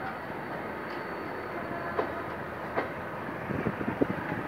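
Passenger coaches rolling past as the train arrives at a station, steel wheels on rail with a steady rumble. Single clacks come at about two seconds in and again a little later, then a quick run of clacks near the end as wheels cross rail joints.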